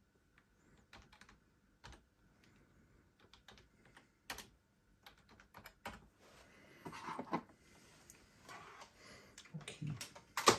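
Typing on a computer keyboard: irregular single key clicks, a few louder ones toward the end, as a command is entered to unlock the Thermomix.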